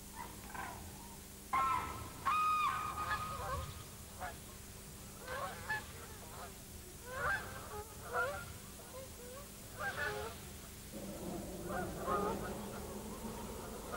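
Flock of wild geese honking: many short, repeated calls overlapping irregularly, loudest a couple of seconds in.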